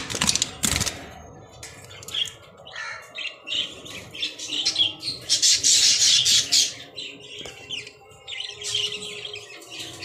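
A nesting Fischer's lovebird squawking harshly again and again, beak open over its newly hatched chicks: defensive calls at the nest box being looked into. There are a few knocks in the first second, and the squawking is loudest around the middle.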